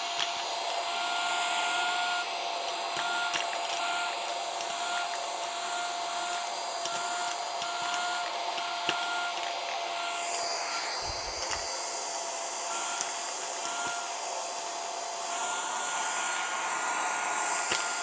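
Aorika 120 W cordless handheld vacuum running steadily, a high motor whine over rushing air, as it sucks up nickels; a few clicks as coins are drawn into its clear dust cup.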